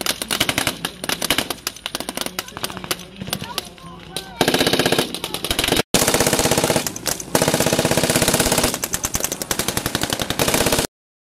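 Rapid automatic gunfire from soldiers' assault rifles, shot after shot in quick bursts, growing louder and denser about four seconds in. After a brief drop-out near the middle, the fire runs on rapidly and cuts off suddenly near the end.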